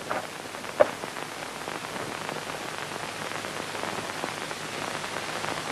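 Steady hiss of an old film soundtrack, with a single faint click a little under a second in.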